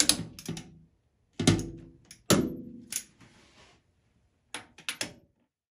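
A torque wrench tightening the cylinder head nuts on a 1931 Ford Model A four-cylinder engine: a series of sharp metallic clicks and clunks with a short ring, coming in small groups with pauses between. Each click is the wrench breaking over at its set torque.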